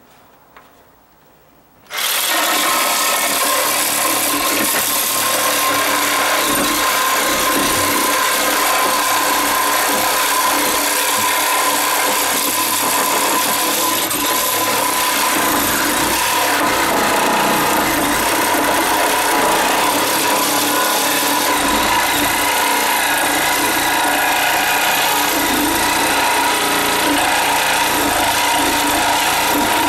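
Cordless reciprocating saw starting about two seconds in and then running steadily, its sharp blade cutting through a dry-rotted wooden 2x6 stud.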